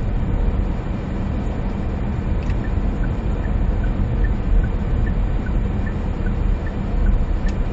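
Inside the cabin of a moving 2020 SsangYong Rexton Sports pickup: steady drone of its 2.2-litre four-cylinder diesel engine and road noise while cruising.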